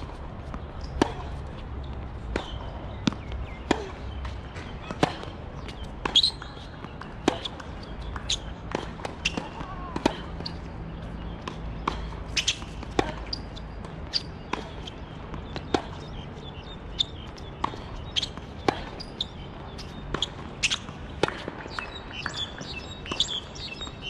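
Tennis balls being hit with racquets and bouncing on a hard court during rallies: a string of sharp pops, roughly one a second, with a few gaps between points.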